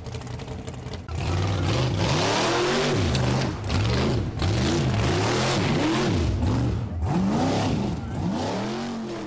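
Banger racing cars' engines revving up and down again and again, several at once, over a broad wash of track noise.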